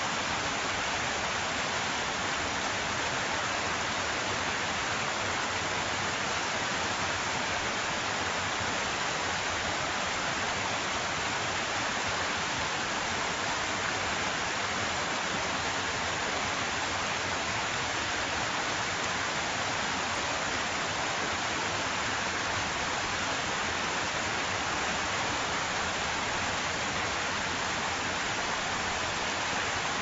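Waterfall: a steady, unbroken rush of falling water, more hiss than rumble.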